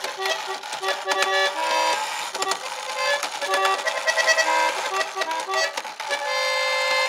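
Wehrle five-horn trumpeter clock movement playing its tune: bellows-blown reed horns sounding short notes one after another, with mechanical clicks of the movement between them, and a longer held chord near the end.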